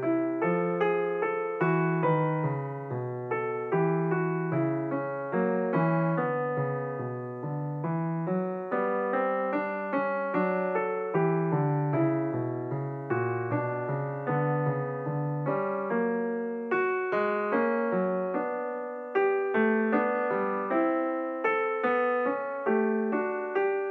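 Background piano music: a gentle melody of single struck notes, each fading before the next, at an even pace.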